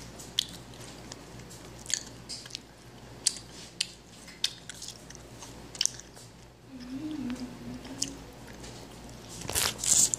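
Chewy Airheads Bites candy being chewed close to the microphone: irregular wet clicks and smacks, with a louder noisy burst near the end.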